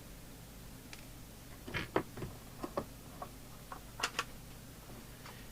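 Scattered light clicks and taps of a CB radio and small tools being handled on a workbench, a sharper pair about four seconds in, over a steady low hum.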